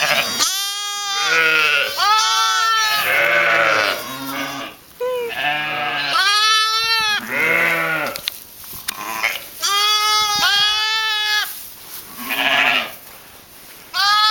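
A flock of Pomeranian Coarsewool ewes and lambs bleating, with many calls overlapping almost without a break: high, thin lamb bleats mixed with deeper ewe bleats.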